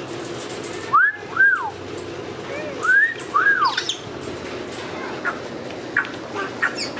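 African grey parrot whistling a pair of rising-and-falling notes about a second in and again about two seconds later, followed by a few short high chirps.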